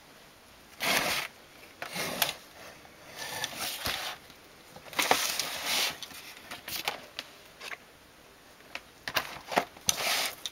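Handling noises: a grey plastic case and a Polaroid 430 Automatic Land Camera being moved on a tabletop, several short scraping and rubbing sounds with a few light clicks, the longest about five seconds in.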